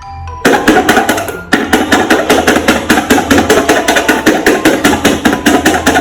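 Rapid, even knocking, about six strikes a second, starting about half a second in with a brief break near the second and a half.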